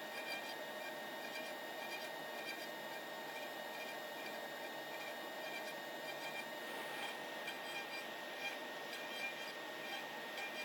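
CNC router running with a steady high whine from its spindle over the even hiss of the dust collection, with faint regular ticking above.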